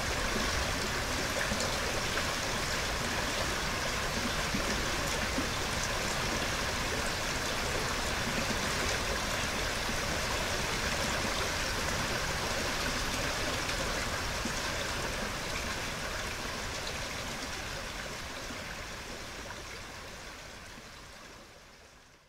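Small woodland stream running over rocks: a steady rush of flowing water that slowly fades out near the end.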